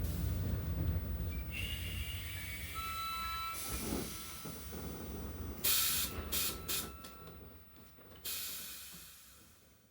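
Train hissing in sharp bursts that each die away, after a few brief high squealing tones, over a low fading music tail; the sound fades out near the end.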